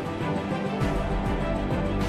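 Background music with held chords, covering the sound of the footage.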